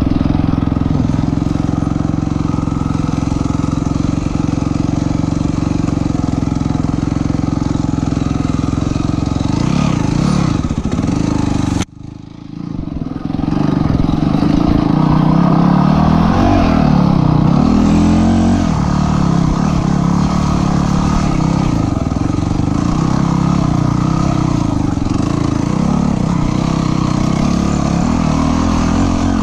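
Dirt bike engine running under way, its pitch rising and falling as the throttle is worked. About twelve seconds in the sound cuts out abruptly, then the engine comes back within a second or two.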